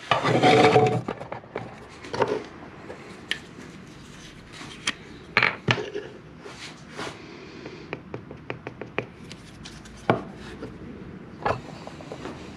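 Handling noise of a paint marker and a superglue bottle being picked up and worked at a wooden workbench: scattered small clicks and taps with a few sharper knocks, and a louder rustle in the first second.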